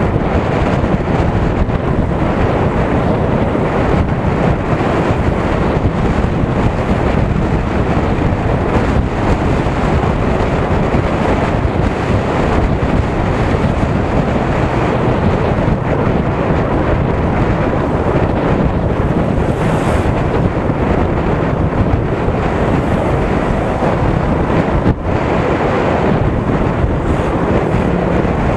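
Steady wind buffeting the microphone of a camera on a moving motorcycle, over the bike's road noise.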